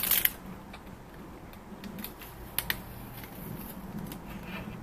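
Plastic clicks, taps and rustling as a hand opens up and works inside a Micro 3D printer's plastic frame. A louder scrape comes right at the start, and two sharp clicks about two and a half seconds in.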